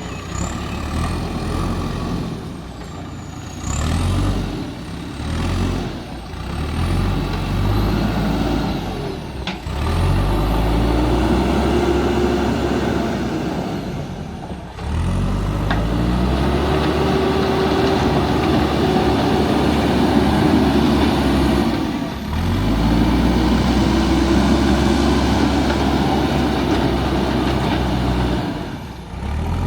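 JCB backhoe loader's diesel engine working, its revs climbing and holding under load in long cycles of several seconds, then easing off. A high thin whine glides up and down during the first third, and the sound breaks off sharply for a moment a few times.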